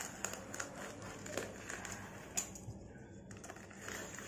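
A scissor blade slitting the packing tape along the seam of a cardboard shipping box: faint scratching with irregular small clicks.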